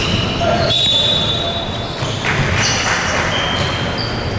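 Basketball shoes squeaking on a wooden gym court as players run and cut: a string of short, high squeaks at different pitches, one of them held for about a second.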